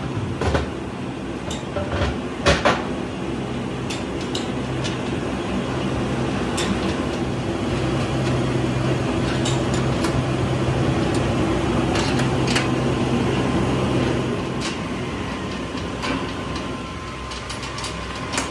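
Steady machinery hum with scattered metal clicks and knocks, the loudest pair about two and a half seconds in, as a cover is fitted onto a steel tank mould and its bolts are tightened with a spanner.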